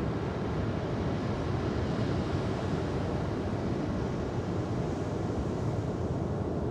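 Ocean surf: a steady low rush of waves, with a higher hissing wash that swells through the middle and fades toward the end.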